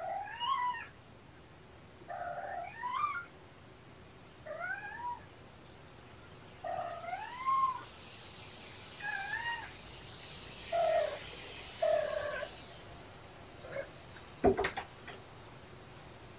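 A young kitten meowing over and over, about ten short calls that rise and fall in pitch, one every second or two. About two seconds after the last meow comes a single sharp thump, the loudest sound.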